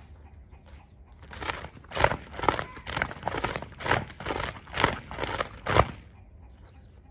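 Plastic horse-training flag (cricket flag) waved back and forth on its stick, about ten loud rustling swishes at roughly two a second, starting about a second in and stopping shortly before the end.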